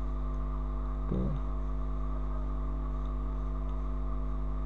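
Steady electrical hum in the recording, a low drone with a stack of steady tones above it, and a few faint clicks.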